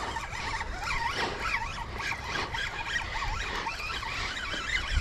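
Wind rumbling on the microphone, with many short, high, wavering squeaks and chirps throughout.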